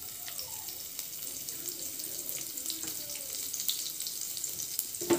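Chopped green chillies and asafoetida sizzling and crackling in hot oil in a frying pan. A single sharp knock comes just before the end.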